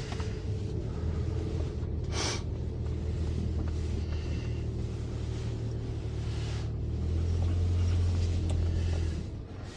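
Tow vehicle's engine running steadily with a low hum that gets louder about seven seconds in and drops away sharply just before the end. A brief sharp clack comes about two seconds in.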